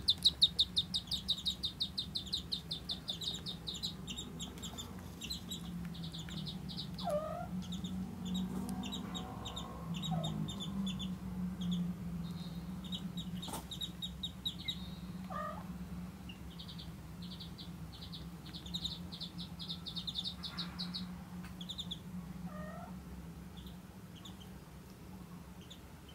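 Ducklings peeping in quick trains of high, short peeps, loudest at the start and coming back again and again. A kitten gives a few brief meows that fall in pitch, about three in all.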